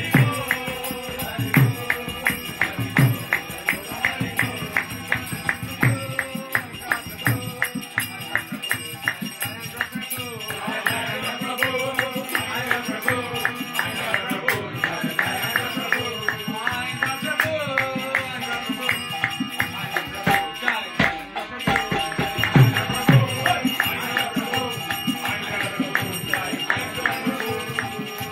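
Live kirtan: voices chanting a devotional melody over a two-headed mridanga drum and the steady, quick clash of small hand cymbals (kartals), about four strokes a second.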